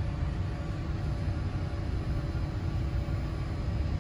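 Steady low rumble of a towboat's diesel engines running, with a faint hum of steady tones above it.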